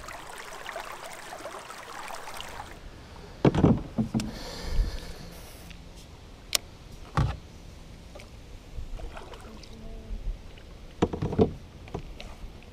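A canoe on the water: water moving around the hull, then several sharp knocks against the canoe's side, a few seconds apart.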